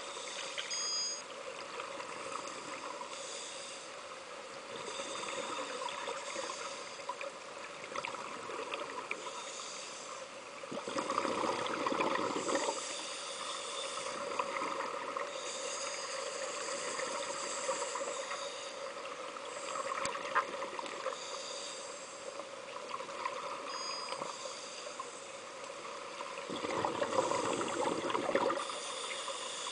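Underwater sound of scuba divers breathing through regulators: gurgling exhaust bubbles over a steady hum, with two louder rushes of bubbles about eleven and twenty-seven seconds in.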